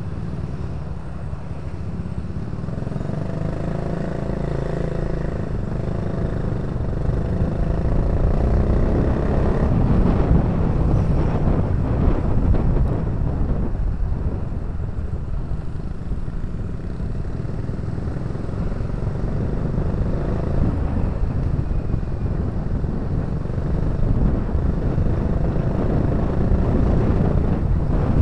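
Motorcycle riding in traffic: engine running steadily under a low rumble of road and wind noise, growing gradually louder, with a pitched engine note heard for a few seconds early in the ride.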